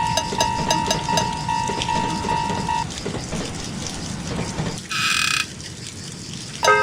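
Clattering, rattling noise as the looping tune fades out, then a short bright tone about five seconds in; the tune comes back at the very end.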